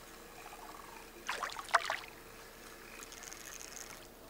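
A hooked walleye splashing at the surface beside a small boat as it is reeled in, a short burst of splashing about a second and a half in.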